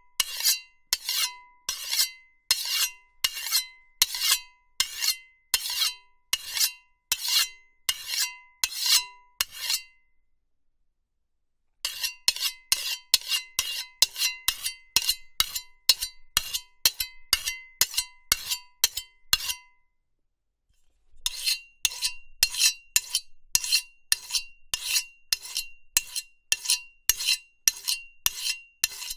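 Knife blade being sharpened in quick repeated scraping strokes, about two a second, each stroke leaving a short metallic ring. The strokes come in three runs, stopping briefly about ten seconds in and again near twenty seconds.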